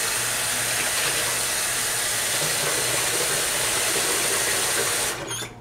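Tap water running steadily into a sink as conditioner is rinsed out of a bundle of hair, shut off about five seconds in.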